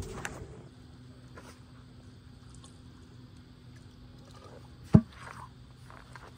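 Quiet handling of a small plastic cooler as a yabby is taken out of it, with one sharp knock about five seconds in, over a faint steady hum.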